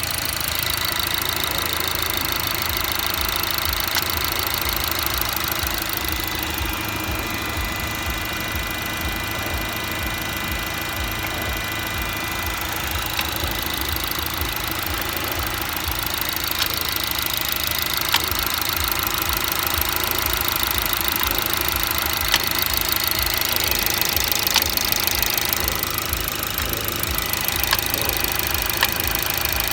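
BMW B48B20 2.0-litre turbocharged four-cylinder engine running steadily on a cold start, with sharp mechanical clicks breaking through at irregular intervals, several seconds apart. This is the chaotic mechanical noise the owner hears only while the engine is cold, which disappears once it warms up, with no fault codes stored.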